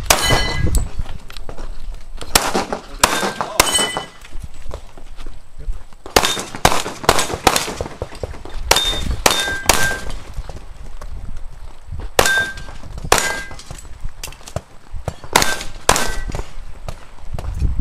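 Pistol shots fired in quick strings of two to five, with the ring of steel target plates being hit after many of them. The strings come in bunches a few seconds apart, with a string of about five quick shots around six to eight seconds in.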